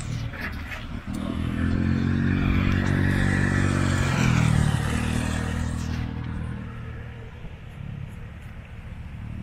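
Motor scooter passing close by: its small engine grows louder, peaks about four seconds in with its pitch dropping as it goes past, then fades away.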